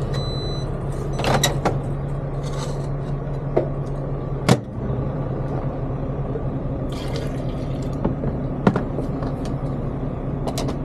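A short electronic microwave beep at the start, then a steady low hum under a few sharp clicks and clunks of mugs and a thermos being handled and set down. The loudest knock comes about four and a half seconds in.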